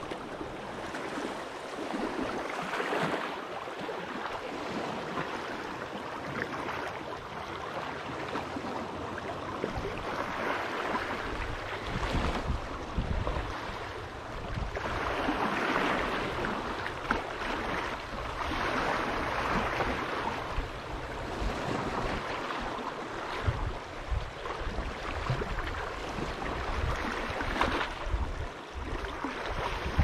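Lake waves crashing on the shore: rushing surf that swells and fades every few seconds, with a low rumble underneath from about a third of the way in.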